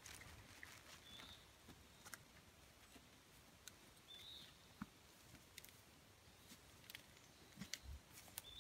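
Faint footfalls and twigs cracking as a moose walks through brush and deadfall, with three short, high chirps about a second in, about four seconds in and at the very end.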